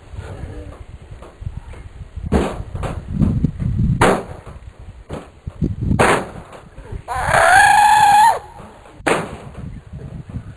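Several sharp knocks over a low rumble, and about seven seconds in a girl's voice holds one high, steady yelled note for just over a second.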